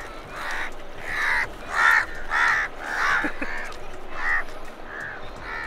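Birds calling: a series of about eight short calls, close together at first, then spaced out and fainter near the end.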